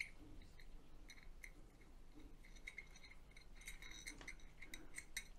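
Faint, scattered clicks and clinks of a solar tracker's metal bars and brackets being handled and fitted together by hand, busiest about three to five seconds in.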